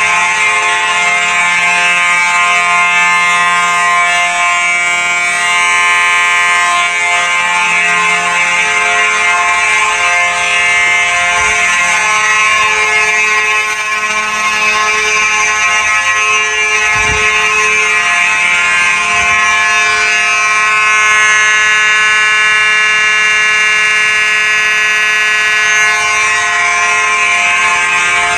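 Simplex 4903-series mechanical fire alarm horn (the 9219) sounding continuously: a loud, steady tone with many overtones that does not pulse or break. A single brief knock is heard about two-thirds of the way through.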